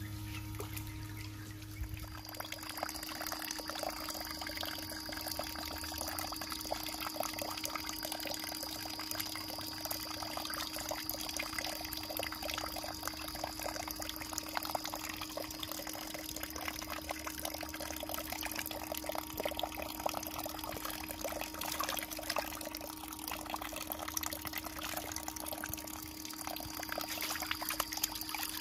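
Pond water splashing and pouring continuously, with many small splashes close together, over a steady low hum.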